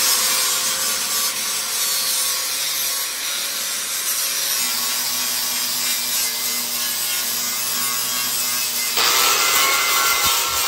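Electric angle grinder running with an abrasive disc pressed against rusted steel, stripping rust and paint from a tractor wheel rim. It makes a steady grinding scrape over the motor's whine and gets somewhat louder about nine seconds in.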